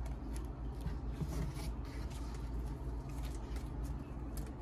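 Steady low background hum with a faint hiss, broken by a few faint, scattered clicks and rustles.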